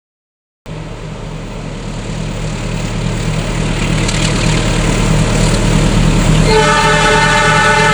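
An approaching train, its engine hum and rail noise growing steadily louder after a moment's silence. About six and a half seconds in, its multi-tone horn starts sounding several notes at once and holds.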